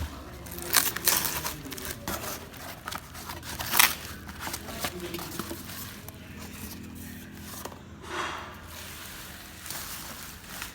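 Irregular handling noises of parts and tools being worked: scraping, crinkling and sharp clicks, with louder knocks about one and four seconds in.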